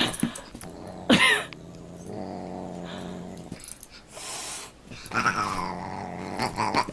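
A dog and a Siamese cat play-fighting: steady low growling for long stretches, a sharp falling cry about a second in, a short breathy hiss a little after four seconds, and a longer falling cry near the end.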